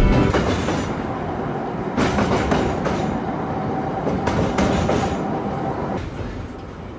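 Historic electric streetcar rolling along its rails: a steady rumble with scattered sharp clicks of the wheels over rail joints, and a faint steady whine through the middle.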